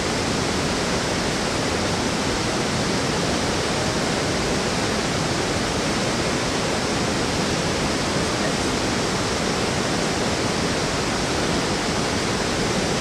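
Steady, even rushing of water, unchanging throughout.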